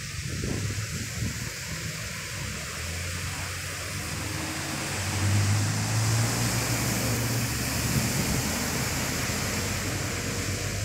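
Vehicles driving through a flooded street: tyres pushing through deep water make a steady rushing splash, and a heavy truck's engine hum grows louder about halfway through as a dump truck ploughs past.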